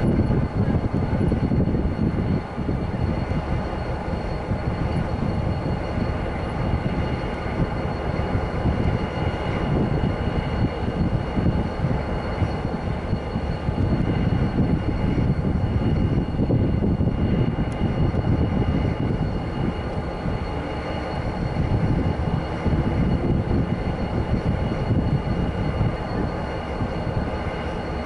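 Diesel freight locomotive running steadily with a continuous low rumble.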